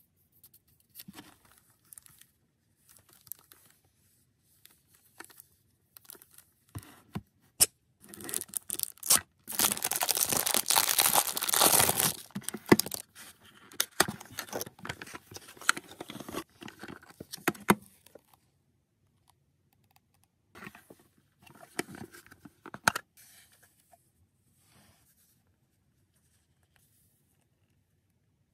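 A small cardboard collector box being slit open and unpacked: scattered clicks and light scrapes at first, then a dense stretch of tearing and scraping about eight seconds in, followed by shorter rustles and clicks of cardboard and the plastic tray being handled, dying away well before the end.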